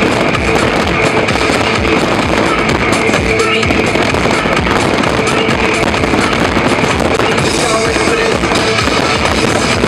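Fireworks display with a dense, continuous crackling and popping of bursting shells, heard over loud music.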